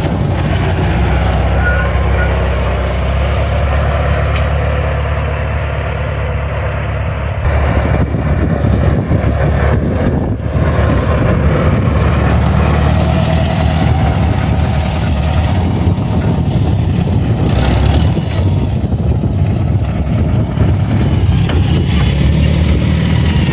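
International 140 tractor's engine running steadily, its note shifting about seven seconds in.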